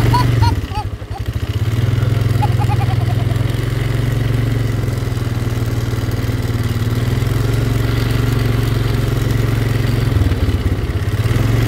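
Four-wheeler ATV engine running steadily at low speed while being ridden. The engine note dips briefly about ten seconds in, then steadies again.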